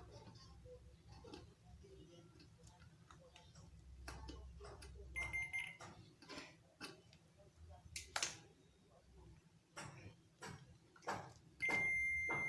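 Multimeter continuity buzzer beeping twice, a short beep about five seconds in and a longer one near the end, each sounding when the probes find a closed circuit through the heater's switch. Around the beeps, light clicks and knocks of the probes and switch being handled.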